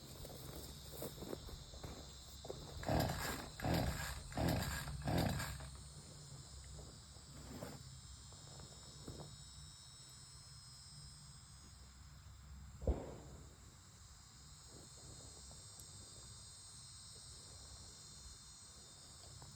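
Chainsaw pull-starter cord yanked four or five times in quick succession, and the engine does not fire: the carburetor is not getting fuel through a broken primer bulb. Crickets chirr steadily throughout, and a single sharp knock comes about two-thirds of the way through.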